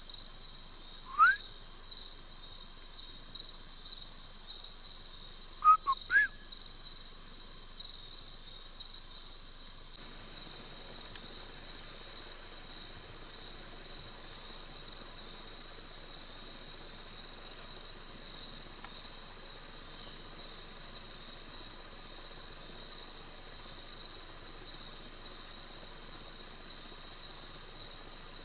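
Night chorus of crickets and other insects: a steady, shrill, pulsing trill at two high pitches. A couple of short rising whistled calls sound about one and six seconds in.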